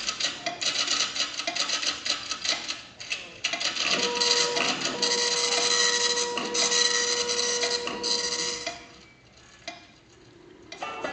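Audience applauding after a dance number, a dense patter of many claps with a long held cheer over the middle, dying away about nine seconds in.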